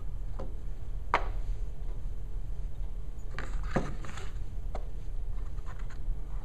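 Small cardboard boxes being set down, stacked and shifted on a keyboard's hard plastic top: a few light knocks and brief scrapes, the loudest knock about a second in and a quick cluster about three and a half seconds in, over a steady low hum.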